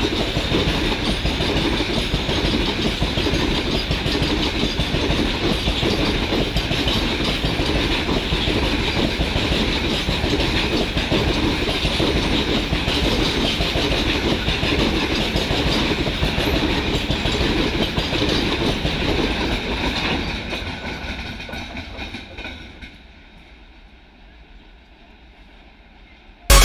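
Covered freight wagons passing close, a steady rumble and clickety-clack of their wheels over the rails. It fades away from about 20 seconds in as the last vehicle goes by, and loud music cuts in at the very end.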